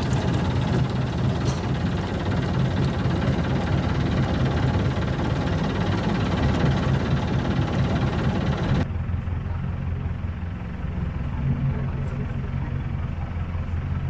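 Sightseeing boat's engine running steadily with a low hum, heard on board. About nine seconds in the sound turns duller as the higher hiss drops away, while the hum carries on.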